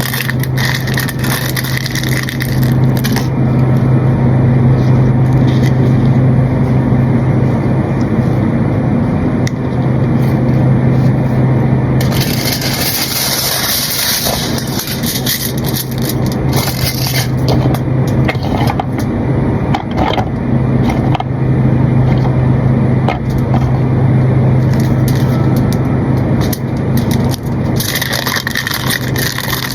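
A steady low motor hum with scraping and rustling over it, and bursts of hiss about twelve seconds in and again near the end.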